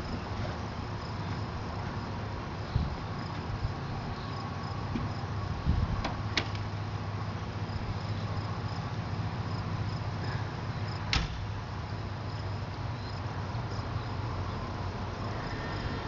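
A few sharp metallic knocks and clanks, the loudest about six and eleven seconds in, as the Metra diesel locomotive's cab steps and door are worked. Underneath runs a steady low hum with insects chirping.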